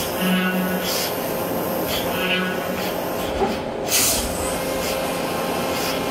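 Speedio U500Xd1 CNC machining center milling and drilling a metal part under coolant. It makes a steady machining noise with sharp hissing bursts about a second in and again near four seconds in. A low hum runs through the first couple of seconds.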